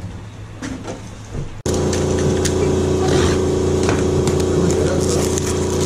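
Light handling clicks, then about a second and a half in a loud, steady engine-like drone begins abruptly and holds, with clicks and rustles of handling the plastic-wrapped power-supply box over it.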